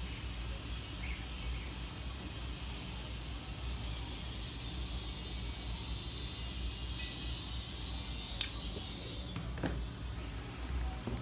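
Steady low background hum, with a sharp click of plastic toy sunglasses being handled about eight seconds in and a fainter click a second later.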